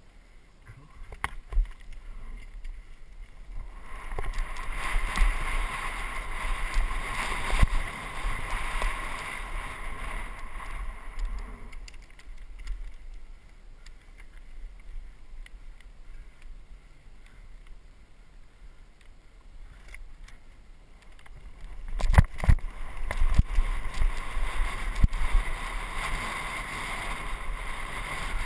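Downhill mountain bike descending a dirt singletrack: tyres on dirt, rattles and knocks as the bike hits bumps, and wind rumble on the bike-mounted camera's microphone. It gets louder about four seconds in as the bike picks up speed, eases off in the middle, and grows loud again near the end.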